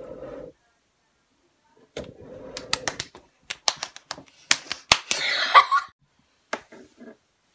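A quick run of sharp clicks and taps, followed about five seconds in by a brief rustling burst and a few last clicks near the end.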